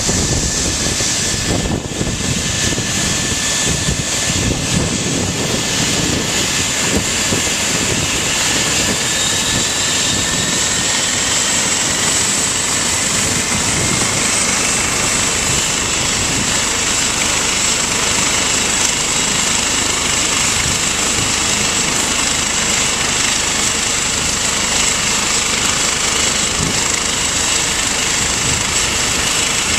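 Eurocopter EC135 twin-turbine helicopter running on the ground with its rotor turning: a steady high turbine whine over a noisy rotor and engine rumble, with a second whine coming in partway through.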